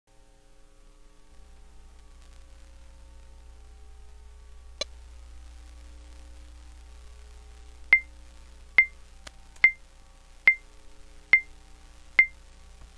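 Metronome count-in: six short, high beeps evenly spaced a little under a second apart in the last five seconds, over a faint low hum, with a single click about five seconds in.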